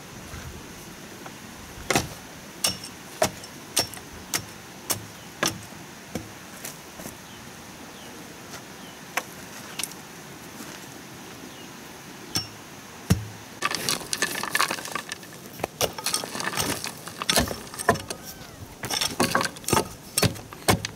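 Sharp knocks of a long-handled tamping pole packing soil around a bamboo gate post, a few strokes at a time, with denser knocking and scraping of earth and stones about two-thirds of the way through and again near the end.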